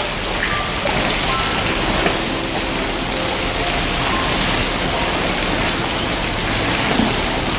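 Continuous splashing and rushing pool water as two polar bears wrestle and swim in it.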